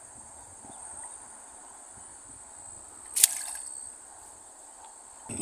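Crickets trilling steadily. About three seconds in comes one sharp splash, the small fish being dropped back into the shallow water as it is released.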